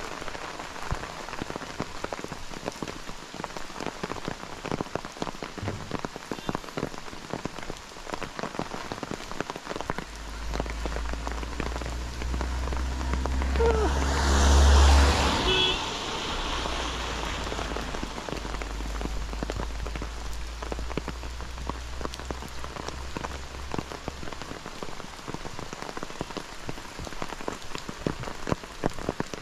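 Steady rain with many close raindrop hits throughout. A low rumble builds from about ten seconds in, is loudest around fifteen seconds with a brief hiss, and fades out by about twenty-five seconds.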